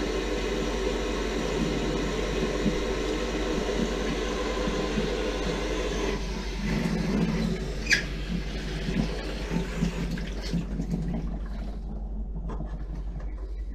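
Kitchen faucet running into a stainless steel sink, the water going straight down the freshly unclogged drain as a flow test. There is a brief sharp squeak about eight seconds in. The running-water sound drops away a couple of seconds later as the tap is shut off.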